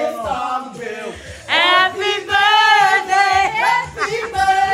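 Singing of a birthday song, in long held notes that waver slightly, louder from about a second and a half in.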